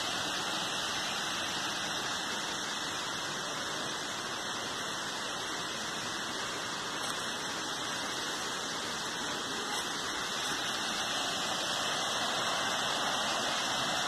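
Steady rush of a waterfall: an even, unbroken noise of falling water.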